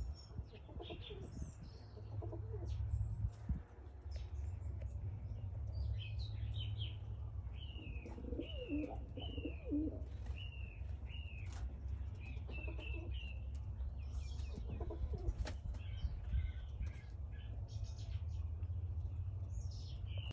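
Domestic pigeons cooing as they feed, with the low coos clustered a little under halfway through and again later, over a series of short, high, repeated chirps from other birds. A steady low rumble lies under it all.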